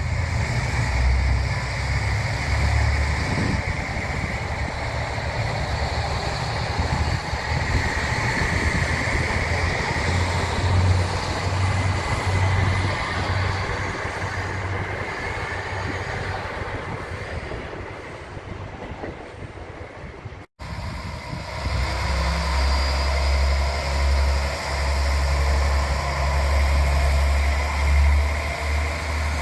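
A rail vehicle running past, a continuous rumble of wheels and running gear with a steady higher ring above it. It drops out abruptly for an instant about twenty seconds in, then carries on with a heavier low rumble.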